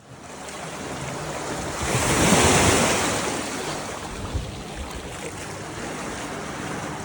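Ocean surf: a wave builds, breaks loudest about two seconds in and washes out, leaving a steady rush of surf.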